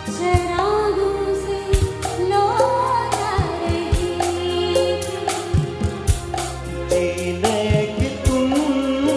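Live duet of a Hindi film song. A woman sings into a microphone over keyboard accompaniment and a steady percussion beat, and the man's voice takes over near the end.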